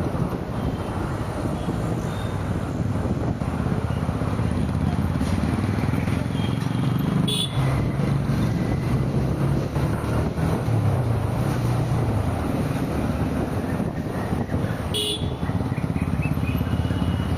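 Busy road traffic heard while driving: a steady rumble of engines and tyres, with short horn toots from other vehicles, the clearest about 7 seconds in and again about 15 seconds in.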